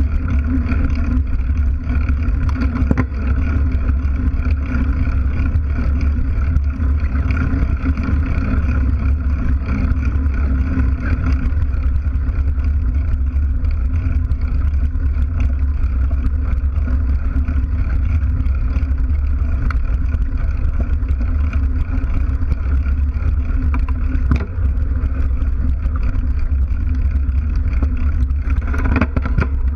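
Steady loud rumble of a mountain bike's knobby rear tyre rolling and wind buffeting, heard from a camera mounted right at the rear wheel, with a few sharp knocks along the way.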